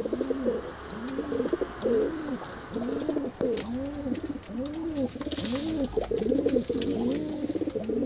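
Domestic pigeons cooing over and over. Each coo rises and falls in pitch, and they come a little faster than one a second.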